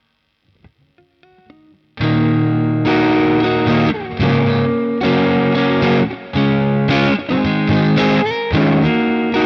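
Strat-style electric guitar played through a Caline Pure Sky overdrive pedal (a Timmy clone). A few quiet picked notes come first, then about two seconds in loud overdriven chords are strummed in a riff with several chord changes, the last chord left ringing.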